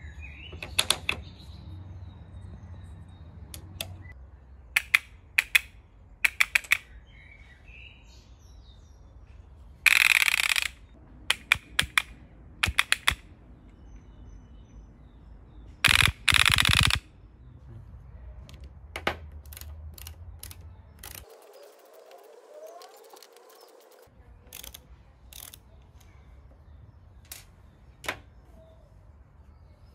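Homemade wooden select-fire rubber band gun with a rotating star wheel, clicking and snapping as its mechanism releases bands. There are single sharp snaps and quick groups of clicks, and two louder bursts of rapid clicking about a second long, around ten and sixteen seconds in.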